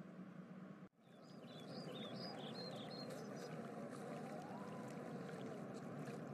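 Faint outdoor ambience: a steady hiss of background noise with small birds chirping in quick, repeated calls, starting about a second in after a brief dropout.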